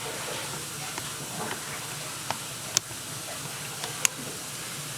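Steady hiss with three sharp, light clicks spread through it.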